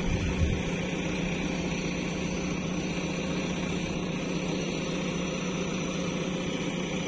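JCB 3DX backhoe loader's diesel engine running steadily at an even pitch as the backhoe digs, with a couple of low thuds just at the start.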